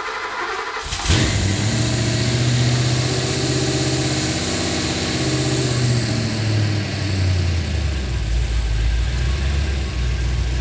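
Ford 289 V8 on a Holley Sniper EFI being cranked by its starter, catching about a second in and running at a fast idle. Its speed slides down over the next several seconds and settles at a steady idle, the EFI searching a little for idle on this first start.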